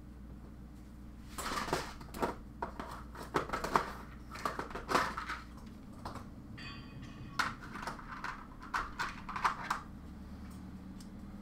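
Irregular clicks and clatter of small hard objects being handled, over a low steady hum, with a brief scraping squeak about two-thirds of the way through.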